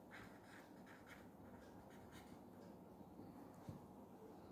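Faint scratching of a pen writing on paper on a clipboard, a few short strokes mostly in the first half, then near silence.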